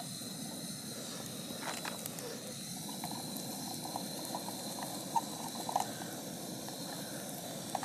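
Bread rounds frying in spiced oil in a camping cook pot over a gas stove: a steady sizzle and hiss, with a few light taps and scrapes of a fork against the pot as the pieces are turned.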